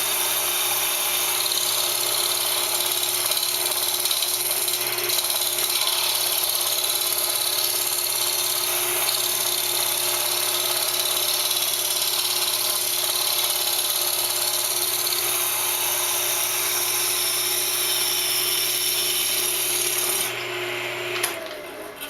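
Wood lathe running with a round-nose scraper cutting into a spinning padauk-and-maple laminate blank, a steady motor hum under the hiss of the cut as the blank is brought toward true. About two seconds before the end the cutting stops, the lathe motor shuts off, and a single knock follows.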